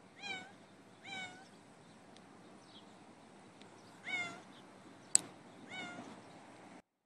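A cat stranded high on a fence post meowing four times, each meow a drawn-out call that rises and then falls in pitch. There is a single sharp click about five seconds in, and the sound cuts off suddenly near the end.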